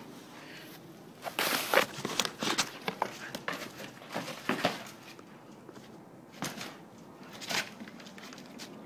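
A dog playing with a toy: irregular scuffs, knocks and crinkling, busiest between about one and three seconds in, with a few more near the end.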